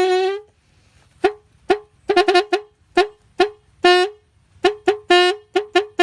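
A handmade horn imitating a truck horn, sounded in a string of short honks on one steady pitch. Most of the honks are quick and staccato, some come in rapid clusters, and a few are held a little longer.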